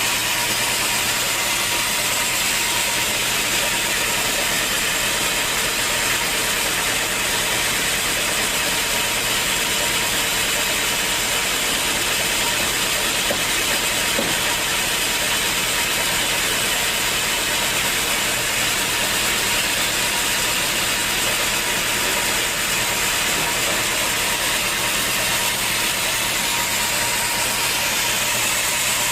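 Sawmill saw machinery running steadily: a continuous loud mechanical noise with a constant high whine.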